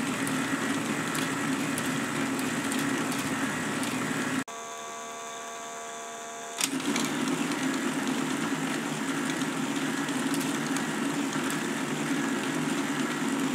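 K'nex motor driving its plastic gear train and pin-tape chain at speed: a steady whir with faint ticking. About four and a half seconds in it gives way for two seconds to a quieter, steadier hum, then the whir resumes.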